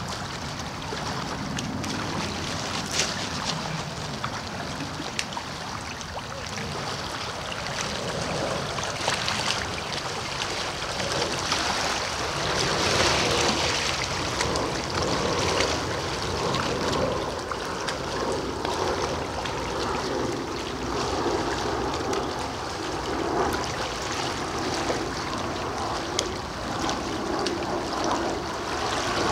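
Small river waves lapping and washing against a rocky, pebbly shore, a steady watery wash with a few light clicks scattered through.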